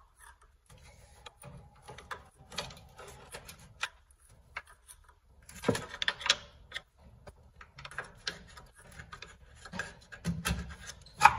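Scattered metal clicks, knocks and scraping as a Chevy Silverado's upper control arm is pried and wiggled free of its frame mount, with a louder knock about halfway through and the loudest one near the end.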